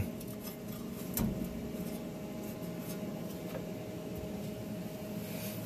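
A steady low background hum with a few faint light clicks of steel being handled as a magnetic welding square is set against a steel bracket.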